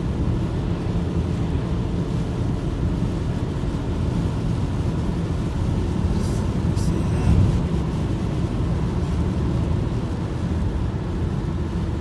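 Steady low rumble of a car driving on a snowy road, heard from inside the cabin: engine and tyre noise. A couple of brief clicks come just past the middle.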